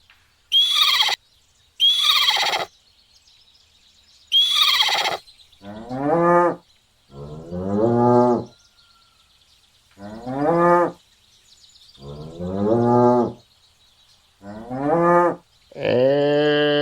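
Cattle mooing: a series of about six low moos, each about a second long and rising then falling in pitch, starting about six seconds in. Before them come three short, high-pitched cries that fall in pitch.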